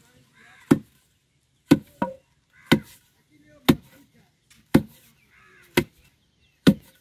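Wooden pestle pounding dried cassava chips in a tall wooden mortar, grinding them into flour: steady thuds, about one a second.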